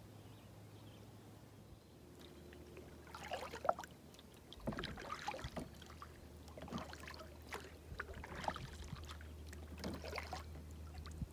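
Canoe paddle strokes in calm lake water: a splash and swirl of water about every one and a half to two seconds, starting about three seconds in.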